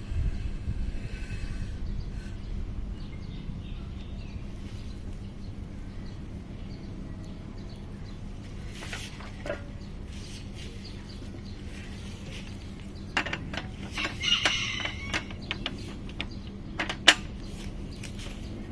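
Outdoor ambience with a steady low hum, a brief bird chirp, and a short run of sharp clicks and knocks.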